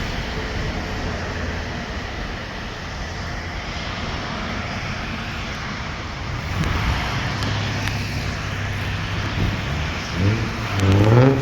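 Steady drone of a vehicle engine over outdoor traffic noise.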